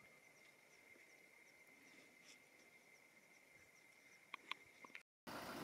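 Near silence: faint outdoor ambience with a steady high insect trill and a few short bird chirps about four and a half seconds in. It cuts out briefly near the end and a louder steady background noise comes in.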